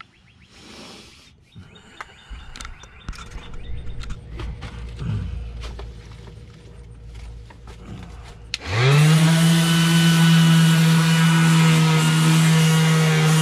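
A few clicks and knocks, then about two-thirds of the way through a Ryobi random orbital sander switches on, spins up quickly and runs steadily against the fiberglass patch on the boat's transom.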